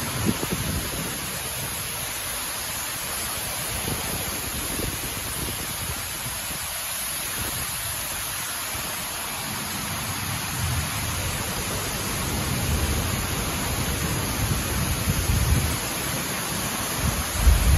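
Heavy rain hissing steadily, with runoff pouring in streams off the edge of the highway overpass into the water below. A low rumble comes and goes, strongest near the end.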